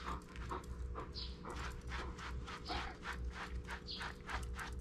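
Bernese Mountain Dog panting, a quick even run of about five breaths a second.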